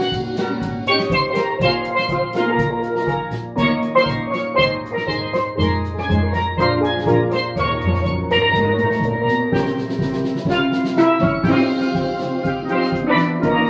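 Steel band of several steelpans played with mallets: quick struck melody and chords in a steady rhythm over low bass notes.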